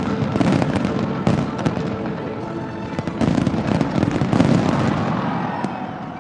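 Fireworks display: a dense run of overlapping bangs and crackles, easing off near the end.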